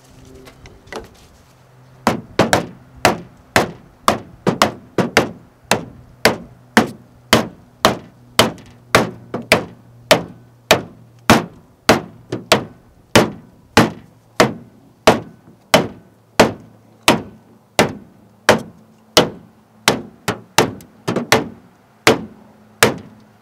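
Hammer blows on a pipe driver held over a longtail mud motor's drive shaft, tapping the new flange bushing into the shaft housing. The sharp strikes begin about two seconds in and repeat steadily, about twice a second.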